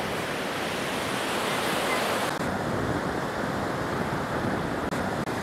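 Sea surf washing onto a sandy beach, a steady rushing with some wind on the microphone; the high hiss drops away about two seconds in.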